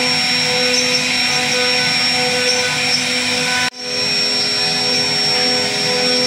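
CNC router spindle running at high speed while its carving bit cuts a relief into a wooden door panel: a steady high whine over cutting noise. A little past halfway the sound drops out for an instant and comes back with a slightly changed pitch.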